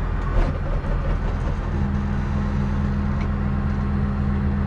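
A Jayco Greyhawk Class C motorhome idling with a steady low hum, which grows stronger about two seconds in. There is a single knock about half a second in.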